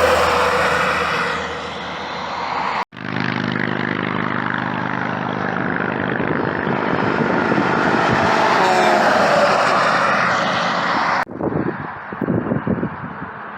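Heavy trucks passing on a highway: engine drone and tyre roar swelling and fading. The sound breaks off abruptly twice, about three seconds in and near the end, where it changes to a quieter, uneven stretch.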